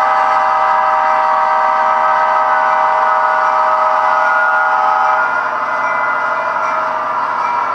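TCS WOW diesel sound decoder in an HO-scale SD70ACe model locomotive sounding a multi-tone air horn chord through the model's small speaker. The horn is held for about five seconds and then released, leaving the locomotive's running sound.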